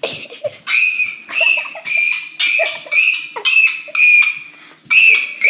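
A child screaming at her mom in a rapid run of short, very high-pitched shrieks, about two a second, loud and piercing.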